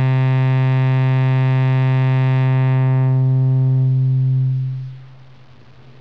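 LushOne synthesizer holding one steady low sawtooth note while its low-pass filter cutoff is turned down. From about two and a half seconds in, the edgy high overtones drop away one after another and the note grows softer and rounder. Near five seconds it falls away to a faint low hum.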